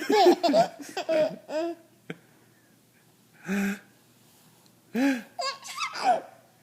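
A baby laughing in short bursts of giggles at a fake sneeze, with a pause of a couple of seconds in the middle before the laughing starts again.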